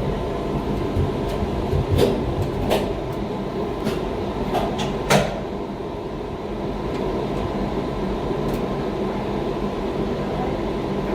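Gateway Arch tram capsule running on its track, a steady rumble and hum with a handful of sharp clunks and knocks in the first five seconds as the small pod rocks and re-levels, the loudest a little after five seconds in.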